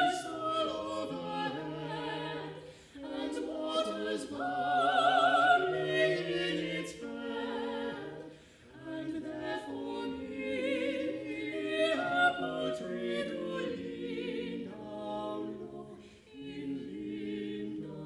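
A small mixed choir of four voices, two women and two men, singing together with vibrato in a church. The phrases break off briefly about 3, 8 and 16 seconds in.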